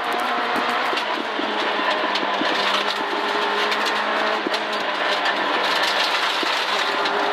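Peugeot 205 rally car's engine heard from inside the cockpit, holding a steady note under a constant throttle, with road noise and frequent short rattles and clicks from the car. The throttle is being worked by the co-driver pulling a string, the accelerator cable having broken.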